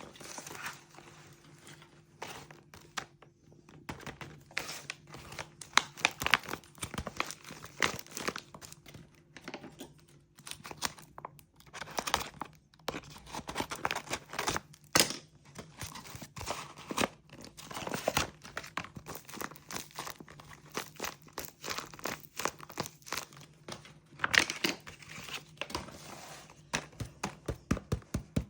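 Plastic packaging crinkling and being torn open in irregular bursts of crackles, as squishy toys are unwrapped.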